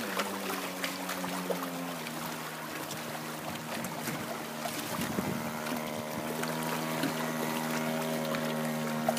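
The 26cc two-stroke gas engine of a 51-inch R/C speedboat running out on the water. Its pitch drops at the start and again about two seconds in, then holds steady.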